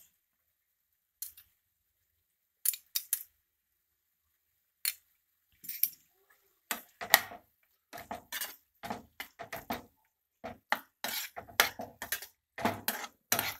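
Metal slotted spatula clinking and scraping against a nonstick frying pan while penne is stirred into tomato sauce: a few scattered clinks at first, then steady stirring clatter from about seven seconds in.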